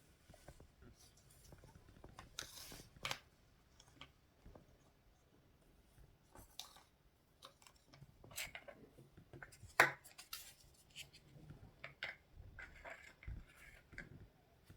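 Toy and candy packaging being handled and opened by hand: scattered clicks, snaps and crinkles of plastic wrapping, the sharpest snap about ten seconds in.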